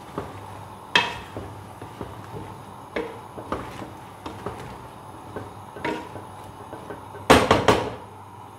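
Wooden spatula stirring aubergine and potato pieces in an aluminium pressure cooker, knocking against the pot now and then. Near the end comes a quick flurry of louder knocks.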